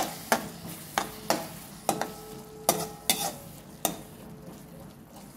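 Steel spatula knocking and scraping against a metal kadai while stirring a wet onion-tomato masala, about seven sharp clinks over the first four seconds, with a faint sizzle of the masala cooking.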